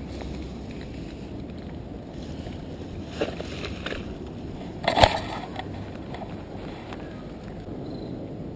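Rustling of grass and weeds as someone pushes through riverbank vegetation, over a steady low rumble of wind on the microphone. A few sharp knocks come around three seconds in, and a louder one comes about five seconds in.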